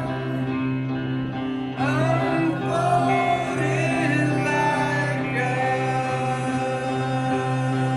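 Live emo rock band playing with sustained guitar chords, and a male voice starting to sing about two seconds in.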